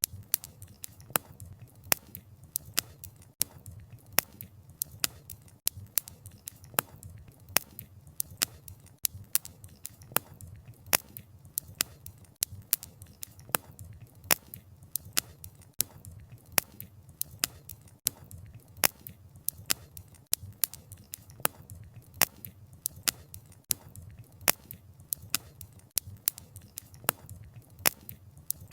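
Campfire of burning wood crackling: frequent sharp pops and snaps from the logs, several a second, over a steady low rumble of the flames.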